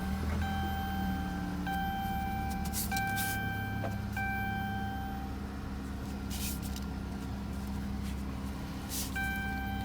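Dodge Charger's engine idling steadily just after starting, a low even hum. Over it, a high steady whine cuts in and out several times.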